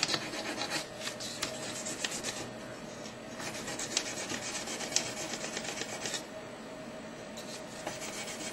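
Emery paper rubbed quickly back and forth over a metal wedding band: a steady, fine rasping of abrasive on metal, made of many short strokes with the odd sharper tick. It is the hand-buffing that takes the light surface scratches out of the band.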